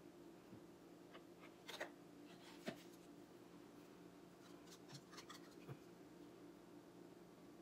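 Near silence with a faint steady hum, broken by a few faint clicks and light scrapes of plastic paint cups being handled during an acrylic pour.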